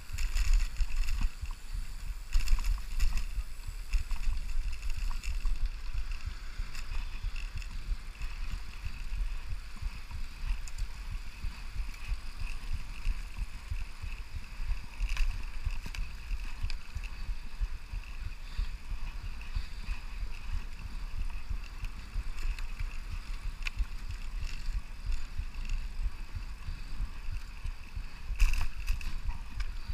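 Wind buffeting the microphone of a camera riding on a moving Brompton folding bicycle, heard as an uneven low rumble, with the bike's rolling tyre and drivetrain noise beneath it.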